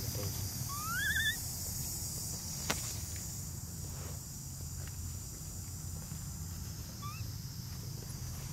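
A baby macaque gives one short rising, wavering squeal about a second in, and a brief faint squeak near the end, over a steady high hiss.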